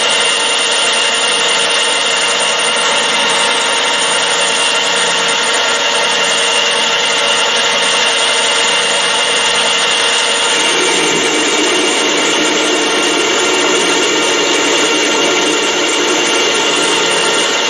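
Metal lathe running under power, its tool taking a copy-turning cut along a metal bar: a steady machine whine with a strong high tone, the sound filling out a little about ten seconds in.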